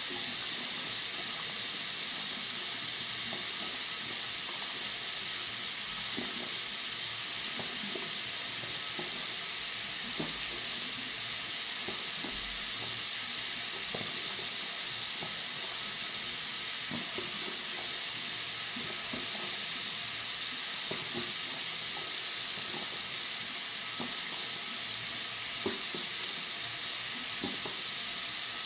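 Water running steadily from a bathroom sink tap, an even hiss with faint, irregular small splashing ticks.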